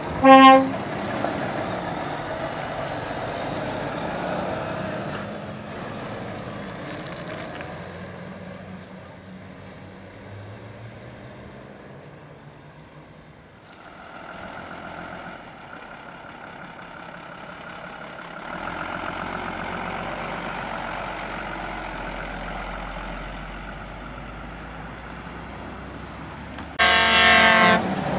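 Heavy truck air horn sounding twice: a short blast right at the start and a longer, louder blast near the end as a heavy recovery truck passes close. In between, heavy lorry engines run and pass.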